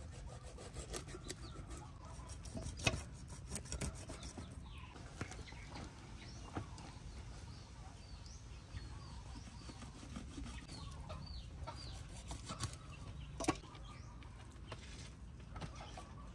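Chickens clucking in the background, with short chirping calls in the middle stretch, over scattered clicks and knocks; the loudest knocks come about three seconds in and near the end.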